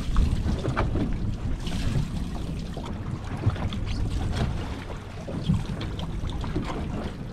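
Wind buffeting the microphone over water lapping against a small boat's hull: a steady low rumble with a few short clicks and knocks scattered through it.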